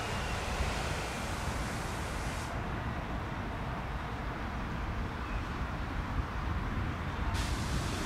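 Airbus A319 airliner's jet engines, a steady rumble of noise, with wind buffeting the microphone. The high hiss cuts out for several seconds in the middle.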